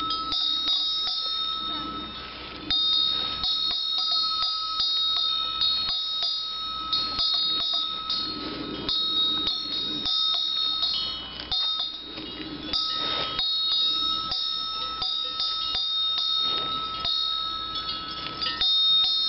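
Cowbell on a feeding cow, clanking and ringing irregularly as the cow moves, over a steady high ringing tone. Now and then there is a brief noisy crunch of the cow eating.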